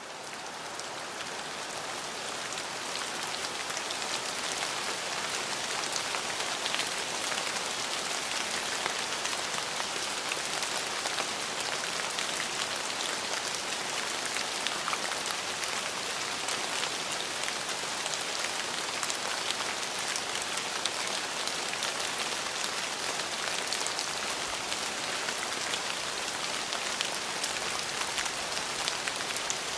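Steady rain falling on a surface, a dense even hiss dotted with the ticks of single drops, fading in over the first few seconds.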